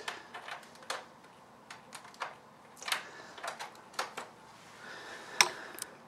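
Cable and connectors being handled and plugged in by hand: scattered light clicks and taps, irregularly spaced, with one sharper click about five seconds in.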